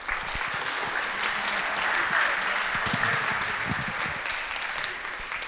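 Audience applauding: many hands clapping, swelling to a peak about two seconds in and tapering off near the end.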